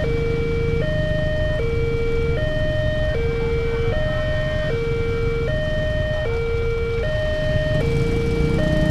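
Railway level-crossing warning siren sounding a steady two-tone alternating alarm, switching between a higher and a lower tone about every 0.8 s, over a low steady rumble.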